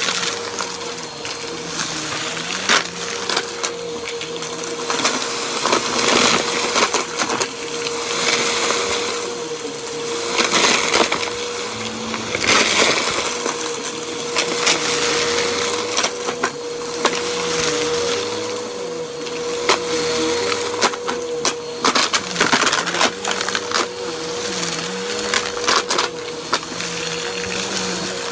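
Bissell upright vacuum cleaner running on carpet with its brushroll turning, small debris crackling and rattling as it is sucked up. Its steady motor whine rises and falls as it is pushed back and forth.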